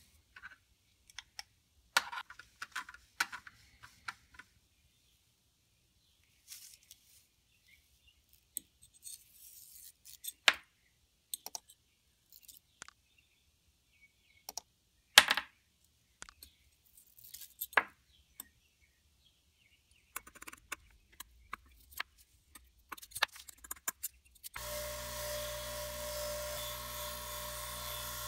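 Small steel knife parts clinking and knocking as they are handled, with scattered sharp clicks and a louder knock about fifteen seconds in. From about twenty-five seconds in, a bench grinder fitted with a wire wheel runs steadily while a steel knife part is held against the wheel to scrub off rust.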